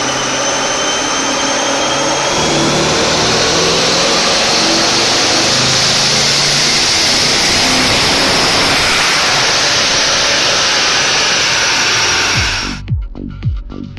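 Twin-turbocharged C7 Corvette Stingray's 6.2-litre V8, with stock exhaust and factory cats, running hard under load on a chassis dyno, with a high turbo whine rising slowly in pitch. Near the end it cuts to music with a thumping beat.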